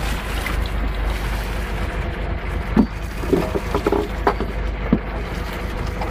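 Small fishing boat's engine running steadily as a low rumble, with a few short knocks in the middle.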